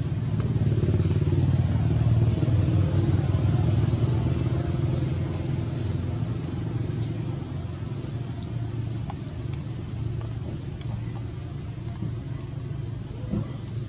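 A motor engine running steadily with a low rumble, louder in the first few seconds and then easing off. A steady high insect drone runs underneath.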